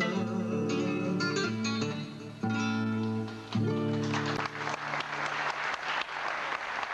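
Live band music ends on held chords about four seconds in, and the audience breaks into applause.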